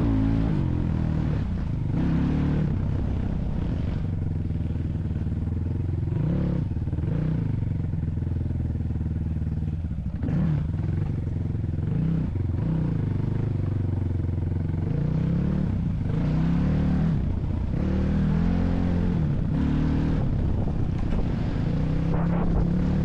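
A vehicle engine running under changing load, its revs rising and falling again and again.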